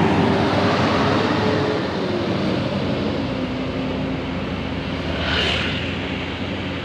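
Large intercity coach bus passing close by: engine and tyre noise loudest at the start, its tone dropping in pitch about two seconds in as the bus moves away, leaving a steady road rumble.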